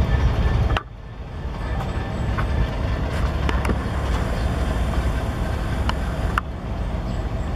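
Two New York, Susquehanna & Western diesel locomotives running light, a steady low engine rumble as they approach. The sound drops abruptly about a second in, then builds back.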